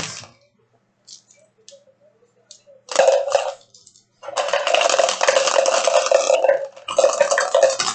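Trading cards being handled and sorted on a table close to the microphone: a short burst of rustling and clattering about three seconds in, then steady rustling and clattering from about four seconds in.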